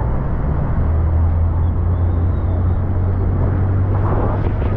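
Tour boat's engine running with a steady low drone that grows stronger about a second in, over the rush of churning white water and waterfall spray.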